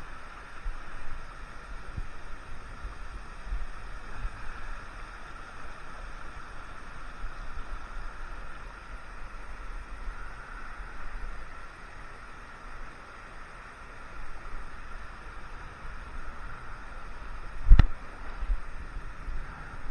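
Small rocky mountain creek running and gurgling steadily, with wind rumbling on the microphone. One sharp knock near the end.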